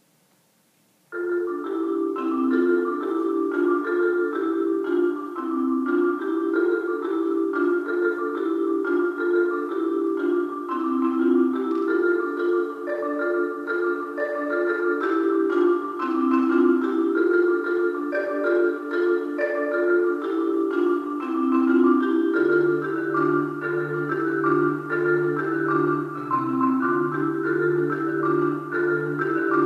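Solo marimba played with mallets: a fast, even stream of repeated notes starts suddenly about a second in, and low bass notes join in a repeating pattern after about twenty seconds.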